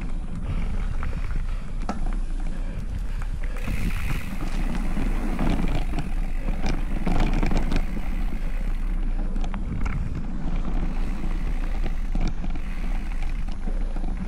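Specialized Stumpjumper Evo mountain bike being ridden along a dirt trail, heard from a handlebar-mounted camera: steady rumble of tyres and wind on the microphone, with frequent sharp clicks and rattles from the bike over rough ground.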